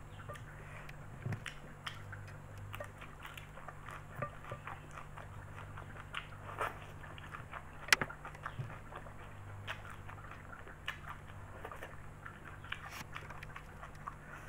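Close-miked eating: a person chewing and biting mouthfuls of spaghetti and raw kenikir greens, with irregular wet smacks and clicks of the mouth. One sharp smack stands out about eight seconds in, while noodles are being slurped.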